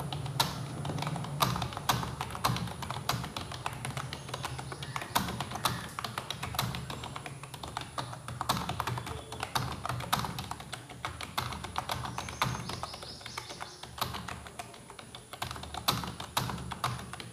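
Touch-typing on an iBall computer keyboard: irregular keystroke clicks at an unhurried pace, several a second.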